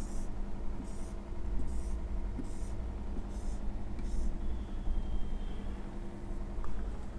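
Felt-tip marker squeaking on a whiteboard in six short strokes, one every second or less, in the first four seconds as lines are drawn, over a steady low hum.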